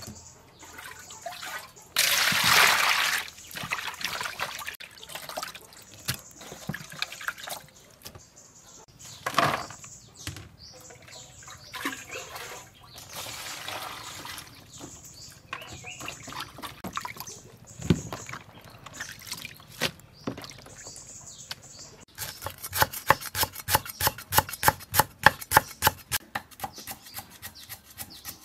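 Water poured and splashing into bowls, with knocks of hands and dishes. Near the end, a cleaver chops lemongrass on a wooden chopping board in quick, even strokes.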